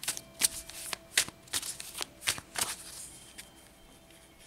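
A tarot deck being shuffled by hand: a quick run of papery snaps and flicks for about three seconds, then it goes quieter near the end.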